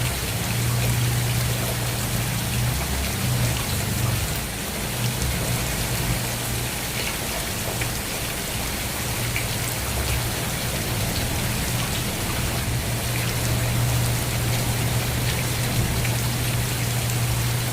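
Steady rain falling, with scattered drops ticking on a surface, over a steady low hum.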